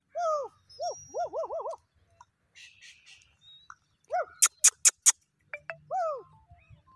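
Short falling animal calls, one after another, with a quick run of four about a second and a half in. Four sharp clicks in a row near the middle are the loudest sounds.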